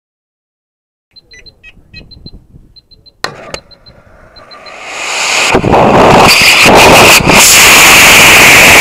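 Faint electronic beeping in short groups from the rocket's flight altimeters, and a sharp click about three seconds in. Then a CTI L645 Green ammonium-perchlorate motor lights and its roar builds over a few seconds into a loud, steady rush as the rocket lifts off, heard from a camera mounted on the rocket's airframe.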